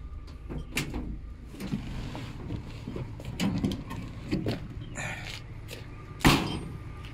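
A vehicle engine running low under scattered metal clunks and knocks, with one loud bang about six seconds in.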